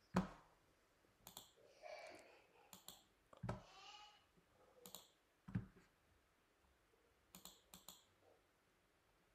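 Faint, scattered computer clicks at irregular intervals, with a few soft thumps, the first just after the start, one about three and a half seconds in and one about five and a half seconds in.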